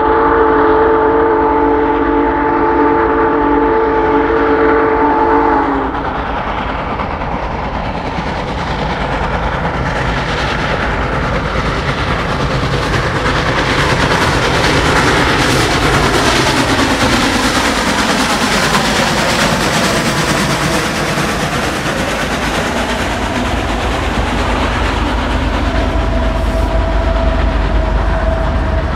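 Union Pacific Big Boy 4014 steam locomotive sounding its chime whistle, a chord of several notes held for about six seconds as it approaches at speed. It then passes close by with the rush of its exhaust and wheels, and its passenger cars clatter past over the rail joints, with a steady high tone near the end.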